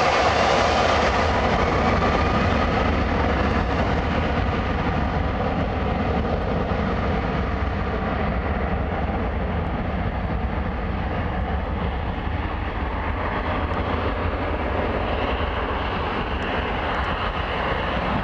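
Boeing 757-204's Rolls-Royce RB211 turbofans at takeoff thrust during the takeoff roll: a loud, steady jet roar. Its hiss dulls as the airliner moves away down the runway, leaving a low rumble.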